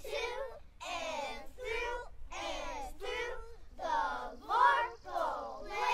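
A group of young children's voices speaking a poem together in unison, in a chanted rhythm with short breaks between phrases.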